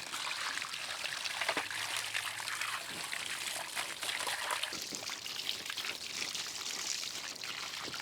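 Running water pouring and splashing over the debris basket and filter of a cordless robotic pool vacuum as it is rinsed out, a steady rush that stops abruptly at the end.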